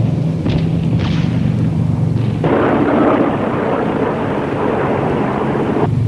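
Four-engine B-17 bomber's piston engines droning steadily, joined from about two and a half seconds in by a louder rushing roar that drops away near the end.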